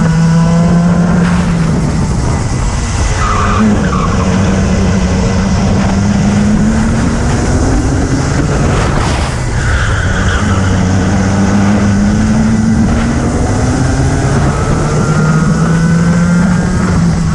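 Onboard sound of a racing kart's engine under power, its pitch climbing steadily along each straight and dropping as the kart slows for corners, three times over. Twice, short tyre squeals sound as the kart turns through a corner.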